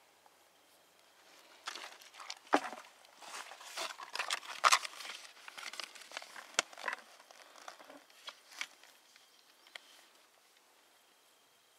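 Irregular rustling and crinkling handling noise, with a few sharp clicks, as hands move about and pick up and hold a sheet of paper; it is busiest a couple of seconds in and dies away after about nine seconds.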